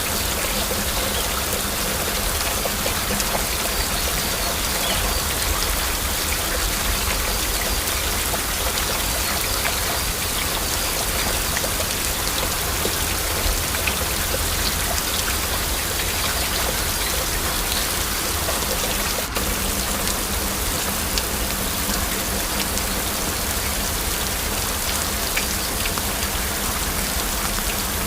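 Heavy rain falling steadily, a dense even wash of noise with many small drop ticks through it.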